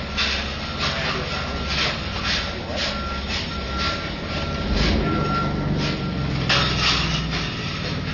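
Petri dish handling machine running: a steady low hum with a clicking clatter about twice a second and an on-and-off high beeping tone that stops about six and a half seconds in.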